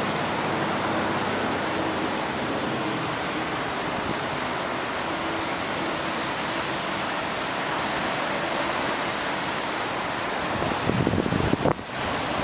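Stormwater pouring from a concrete outfall into a river: a steady rush of water. Near the end comes a brief low buffeting, louder than the water, that cuts off sharply.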